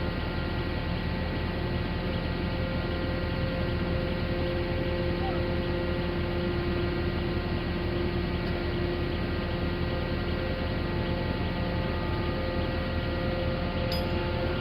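Steady running of a hydraulic pile-pressing rig's engine and hydraulics, which push piles in without a hammer: a constant low rumble with several steady whining tones that don't change.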